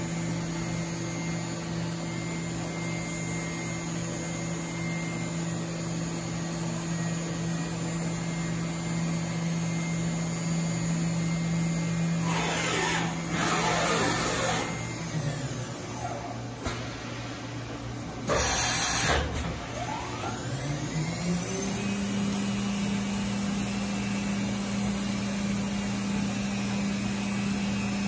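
The 12,000 rpm spindle of a 2018 Doosan DNM 4500 CNC vertical machining center running with a steady whine. About halfway through it winds down, and after a brief loud burst of noise it spins back up and settles at a slightly higher steady pitch.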